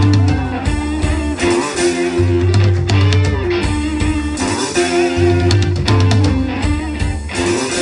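A live rock band playing through a PA: electric guitars, bass and a drum kit in a steady, repeating groove.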